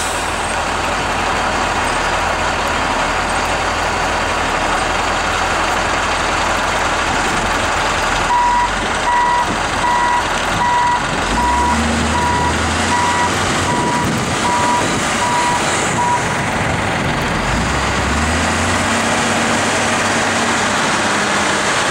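Wheel loader's diesel engine running under load as it dumps sand and backs away, the engine pitch rising twice. Partway through, its reversing alarm beeps steadily for several seconds.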